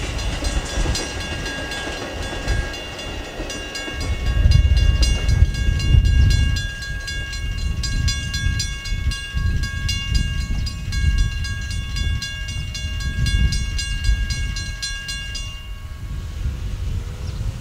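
Mechanical railroad crossing bell ringing with rapid, even strokes while a Metra bilevel commuter train rumbles past. The rumble fades after about six seconds. The bell stops shortly before the end as the gates rise and the crossing clears.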